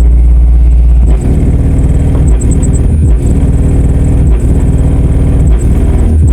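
Massive Audio GTX 15-inch subwoofer on a bench test, playing a loud, deep bass line whose notes change about once a second.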